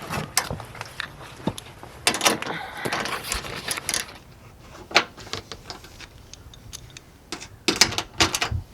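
Irregular metal clicks, clinks and short scrapes of hand tools and fasteners being worked on a bumper quick-release latch mount, bunched a couple of seconds in and again near the end.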